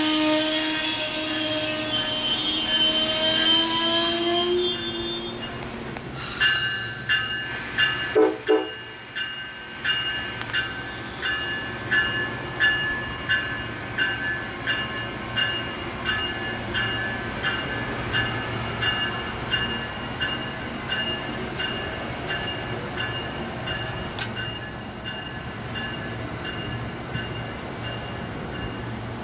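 Train horn sounding a sustained multi-note chord for about four seconds. Then a bell rings steadily, roughly one and a half strikes a second, broken by a short horn toot about eight seconds in.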